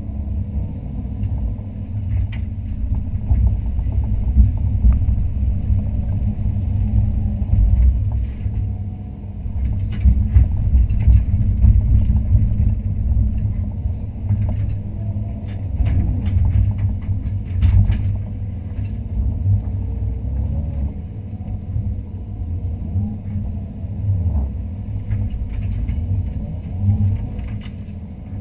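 Daewoo Solar 130-V excavator's diesel engine and hydraulics heard from inside the cab, a low rumble rising and falling with the load as the arm and bucket work. Occasional knocks and scrapes from the bucket in soil and stone, most around the middle.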